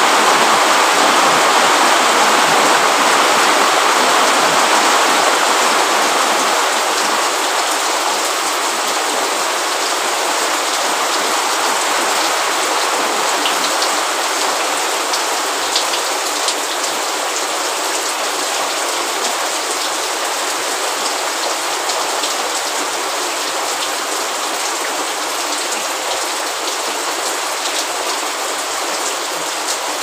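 Steady rain falling, a dense even hiss with scattered drop ticks. It eases off and grows slightly quieter over the stretch.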